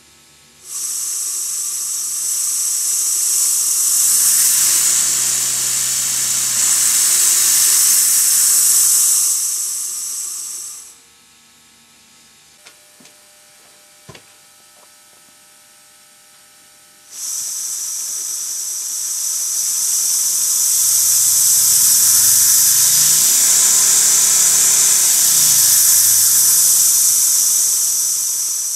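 Four-cylinder oscillating model marine steam engine running on compressed air: a loud hiss of exhausting air over a low beat that climbs in pitch as the engine speeds up and falls again as it slows. It stops about 11 seconds in, a few light clicks follow, and it starts again about 17 seconds in, running up to speed once more.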